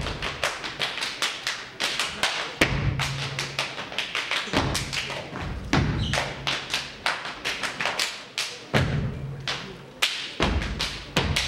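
Step team stepping: fast, rhythmic stomps on the stage floor mixed with hand claps and body slaps, with a heavier, deeper stomp every couple of seconds.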